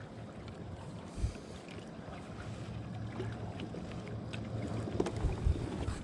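Wind on the microphone and water around a kayak, a steady low rumble with a few soft knocks about a second in and twice near the end.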